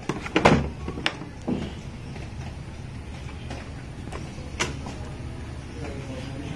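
Plastic clicks and knocks from a portable DVD player's case and lids being handled, the loudest about half a second in and another sharp click near five seconds, over a steady low hum.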